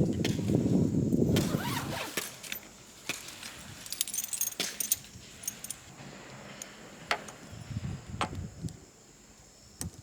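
Light metallic clinks and jangles of camping gear being handled, scattered and irregular, with a low rumble in the first couple of seconds.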